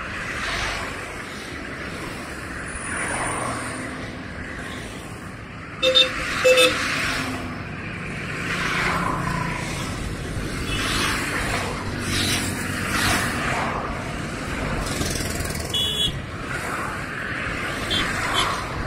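Highway traffic going by: cars and heavy trucks passing one after another in a steady wash of road noise. Two short horn toots about six seconds in, and another brief honk toward the end.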